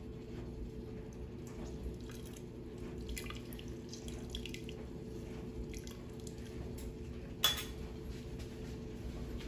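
Orange juice dripping into a blender jar as an orange is squeezed by hand, faint small drips over a steady low hum. A single sharp knock about seven and a half seconds in.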